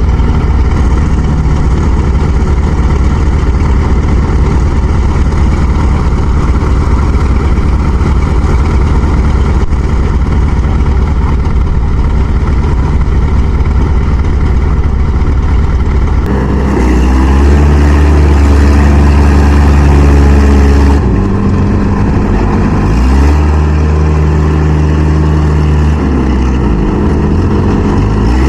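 Engines of the machines towing a Kubota rice harvester stuck in deep mud, working hard. For about the first half they run steadily. Then the engine pitch rises and falls again and again as the throttle is opened and eased, the sound of machines straining under a heavy pull.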